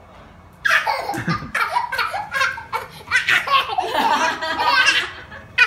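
Hearty laughter from an older woman and a small child. It breaks out about half a second in and runs for about four seconds, with a short sharp knock right at the end.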